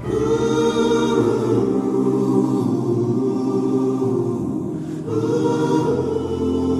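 Worship music with sustained wordless choir voices holding long chords; the voices swell in at the start and again about five seconds in.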